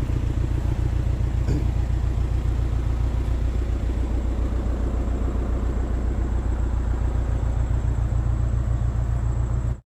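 Backhoe's diesel engine running steadily with a fast, even pulsing, cutting off abruptly near the end.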